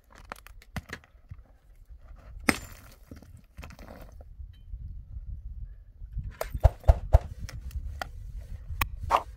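Metal shovel digging into rocky soil: scattered clinks and knocks of the blade striking and scraping stones, with one sharp strike about two and a half seconds in and a quick run of strikes in the second half.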